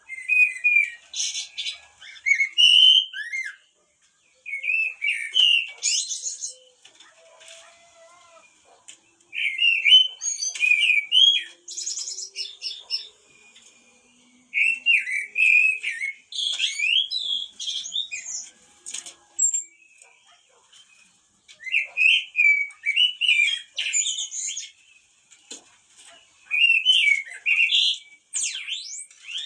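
A blackbird singing in repeated bouts of whistled, warbling phrases, each two to four seconds long, with short pauses between and higher squeaky notes at the ends.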